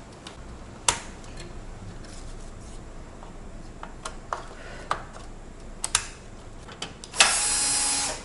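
Scattered clicks and light knocks of cable connectors and parts being handled inside an open PC case, then a loud motor whir lasting about a second near the end, from a cordless drill-driver.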